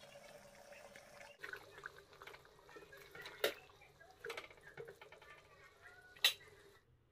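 A spatula stirring a thick curry in a frying pan, faint and wet, with a few knocks against the pan. The two sharpest knocks come about three and a half and six seconds in.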